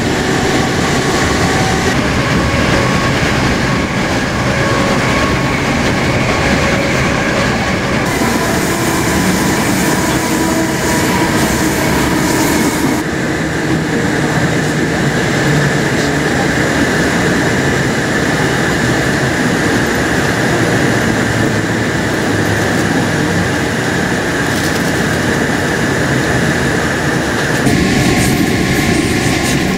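Inside a moving passenger train: the steady running noise of the carriage on the rails, with faint steady whining tones over it.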